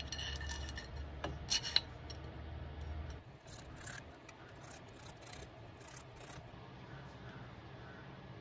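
Small metal workshop parts handled by hand: a few sharp metallic clicks about a second and a half in as the parts knock together, then a run of short scraping and rubbing strokes.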